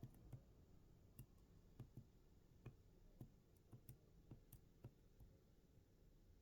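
Near silence with faint, irregular clicks, about one or two a second.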